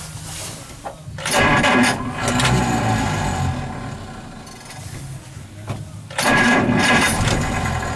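A 1947 Dodge D-24's flathead straight-six being started again on the starter and running, with two loud surges about five seconds apart.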